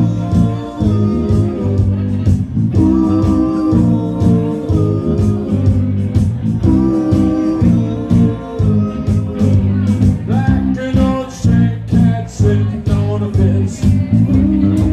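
Live rockabilly band playing a bluesy groove: electric guitar and bass notes in a walking pattern over drums, with regular cymbal strikes.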